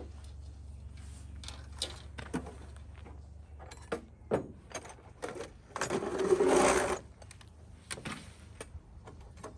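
Hand tools and metal parts clinking and knocking on a steel diamond-plate truck tailgate as someone sorts through them, with a longer rustling scrape about six seconds in and a low steady hum underneath.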